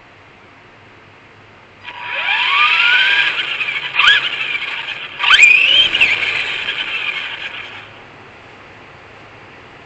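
Arrma Typhon RC car's electric drive whining as it accelerates in bursts, the pitch rising each time, with two sharp knocks about four and five seconds in. The whine starts about two seconds in and dies away near the eight-second mark.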